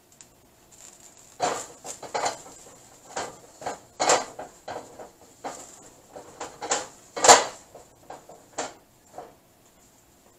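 Steel wok being handled on a gas stove grate: irregular metal knocks, clatter and scrapes, with the loudest knock about seven seconds in.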